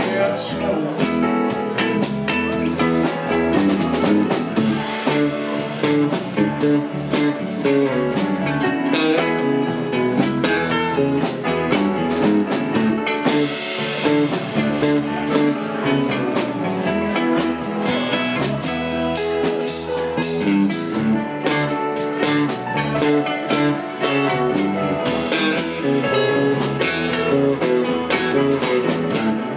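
Live rock band playing an instrumental passage with no singing: electric guitars over drum kit and keyboard.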